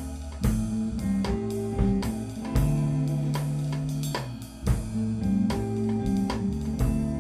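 Instrumental rock band playing: electric guitar, bass guitar and drum kit, with held bass notes under regular drum hits and no vocals, in a rough live mix.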